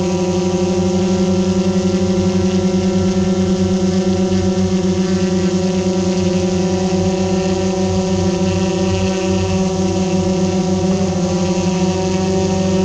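Aircraft running steadily: a loud, even drone made of a strong low hum with many steady overtones above it, shifting slightly near the end.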